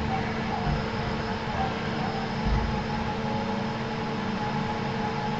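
DIY CNC milling machine humming steadily, with several constant whining tones from its axis drives, as it makes slow probing moves. A couple of soft low thumps come about a second in and past the halfway point.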